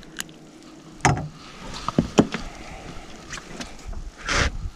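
A few sharp knocks and clicks in a small fishing boat as a caught walleye is handled and measured, with a short rushing noise near the end.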